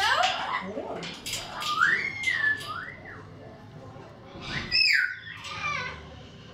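Captive parrots giving several rising-and-falling whistles with some chatter, the loudest whistle about five seconds in.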